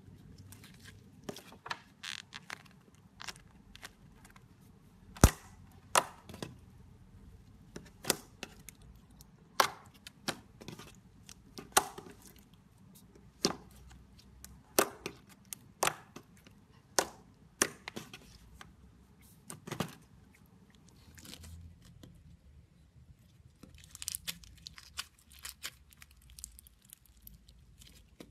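Glossy clear slime being pressed and stretched by hand, with sharp popping clicks as trapped air pockets burst, roughly one a second. Near the end come a few seconds of softer, quicker crackling.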